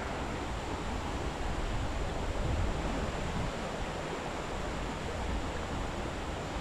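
Steady rush of a muddy, fast-flowing stream running past, an even hiss of water with no distinct splashes.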